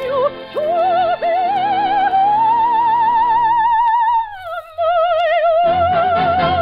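Operatic soprano holding long high notes with a wide vibrato over orchestral accompaniment, stepping down to a lower sustained note about four seconds in, as the orchestra swells beneath her.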